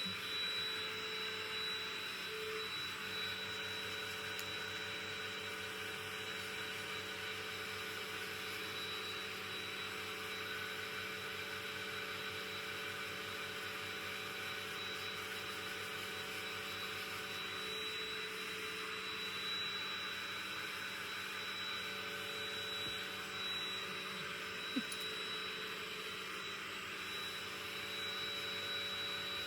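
Vacuum cleaner running steadily: a high whine over an even rushing sound, with one short click near the end.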